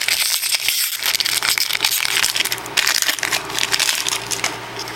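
Wrapper of a Topps trading card pack crinkling and crackling as it is opened by hand, a dense run of tiny crackles that eases off a little near the end.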